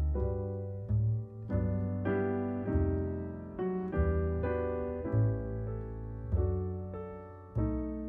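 Solo piano playing slow chords over deep bass notes, each chord struck and left to ring and fade before the next, about one a second.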